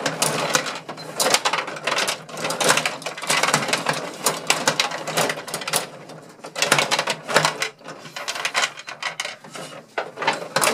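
Gretzky rod table hockey game in play: rods sliding and spinning, plastic players clacking against the puck and each other, and the puck knocking around the rink. Rapid, irregular clattering with no pause.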